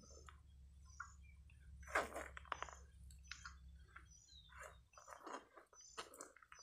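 Faint, short, high chirps of small birds repeating in the background, with a few soft knocks and rustles and a low hum that stops about five seconds in.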